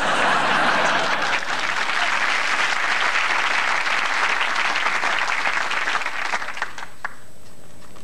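Audience applauding, a dense spread of clapping that fades away about three-quarters of the way through.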